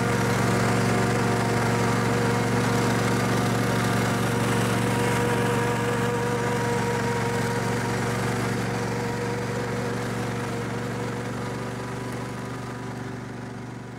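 Snapper riding lawnmower's engine running at a steady speed as the mower drives along on its newly replaced hydrostatic transmission. The sound fades out gradually over the last several seconds.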